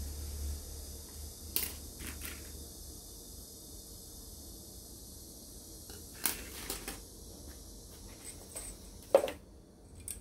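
Plastic model-kit sprues being handled and laid down on a cutting mat: scattered light plastic clicks and clacks, the sharpest about nine seconds in.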